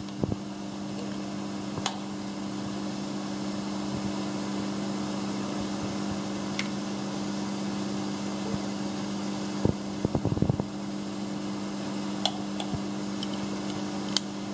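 Steady mechanical hum of workshop equipment, with a few sharp clicks and a short cluster of knocks about ten seconds in as the compression gauge and its hose are handled on the bare cylinder head.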